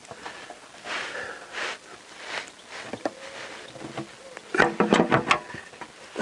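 A man breathing and sniffing hard right at the microphone as he strains under the car. About four and a half seconds in comes a quick run of small clicks and knocks from his hand working at the sump pan.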